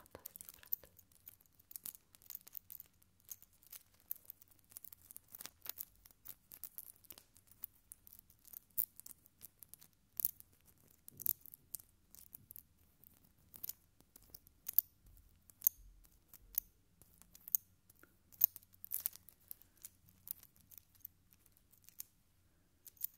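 A small metal pendant on a thin cord being handled and fiddled with close to the microphone, making irregular light clicks and ticks.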